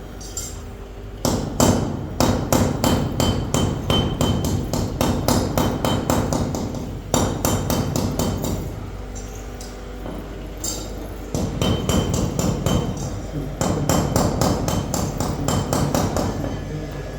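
Manual milling machine cutting mahogany: a steady motor hum under rapid, even knocks of the cutter biting the wood, several a second, in runs broken by short pauses.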